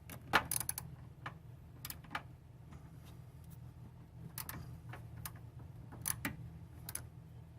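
Irregular sharp metallic clicks and clinks of hand tools and metal parts, about nine scattered taps over a few seconds, as he works at a car battery's cable terminal.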